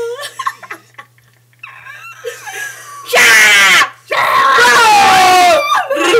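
A person's voice making loud screams: a short harsh shriek about three seconds in, then a longer scream that slides down in pitch, after a few quieter vocal noises.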